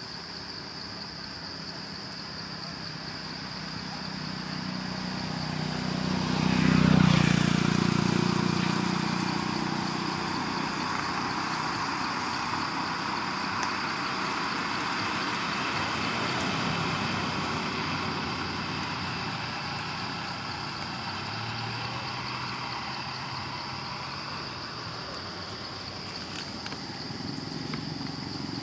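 A motor vehicle passes close by. Its low engine sound swells to a peak about seven seconds in, then settles into a steady hum, over a constant high insect drone.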